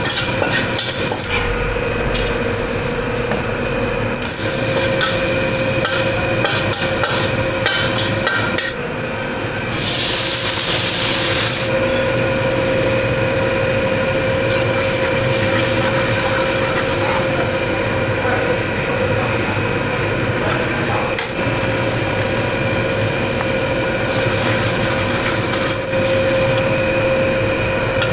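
Garlic and ginger stir-frying in a steel wok: a sizzle with a metal spatula scraping and stirring, over a steady hum. About ten seconds in, a louder hiss lasts a couple of seconds.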